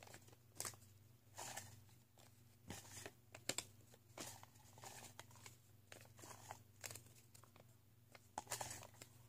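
Near silence: faint scattered rustles and light clicks of handling, a dozen or so short ones spread through, over a low steady hum.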